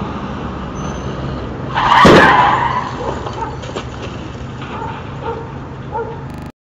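Two cars colliding at an intersection: a short screech and a loud crash of impact about two seconds in, fading over a second or so, over a steady low traffic hum. The sound cuts off abruptly near the end.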